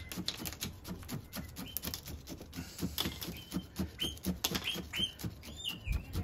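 Wooden chopstick poked repeatedly into granular bonsai substrate in a plastic colander pot, the grains clicking and rattling in quick, irregular ticks as they settle around the roots. A few short high chirps come in over the second half.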